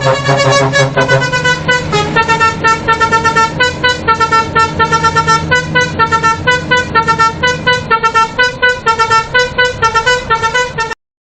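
A lorry's telolet multi-tone musical horn playing a fast, pulsing melody: several horn tones sound together in quick short toots, several a second. It cuts off suddenly near the end.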